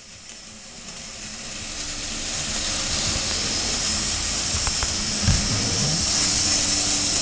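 Steady steam-like hissing that swells over the first three seconds and then holds, with a low thump about five seconds in.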